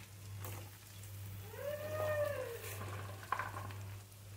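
A cat meows once: a single call about a second long that rises and then falls in pitch, over a faint steady low hum.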